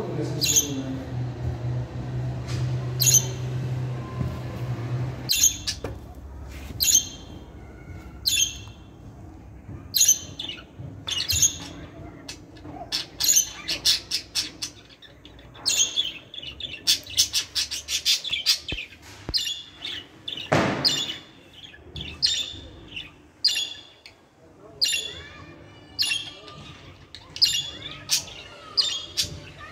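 Budgerigars chirping: a steady string of short, sharp calls, at times several a second. A low steady hum underneath cuts off about five seconds in.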